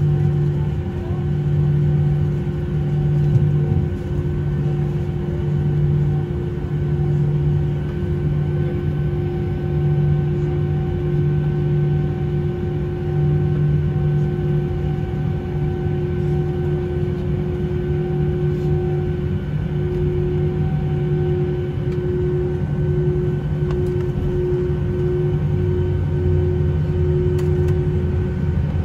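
Cabin noise of an Airbus A319-132 taxiing on the ground: its IAE V2500 engines at idle and the cabin air system make a steady hum with a constant tone and a slow throb in the low hum.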